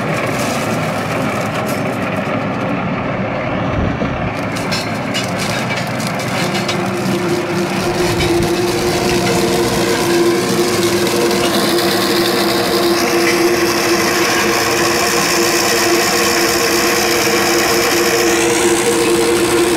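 New Holland T7200 tractor running under load as it drives a rock crusher breaking up stony ground: a loud, continuous machine noise. A steady drone sets in about a third of the way through and the sound grows slightly louder.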